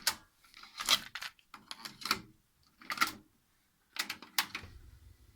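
Yamaha KX-300 cassette deck's buttons and tape transport mechanism clicking and clunking as it is operated, about eight sharp clicks. A low steady hum starts near the end.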